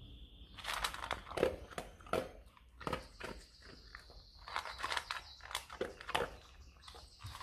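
A dog eating dry kibble: a run of irregular crisp crunches as it chews.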